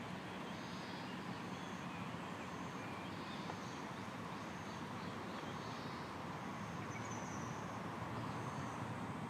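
Outdoor ambience: a steady low rumble with a short high-pitched chirp repeating about every 0.7 seconds.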